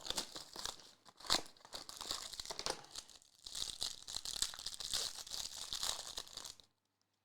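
Plastic wrapper of a trading-card pack crinkling and tearing as it is handled and opened by hand, with a sharper crackle about a second in; it stops shortly before the end.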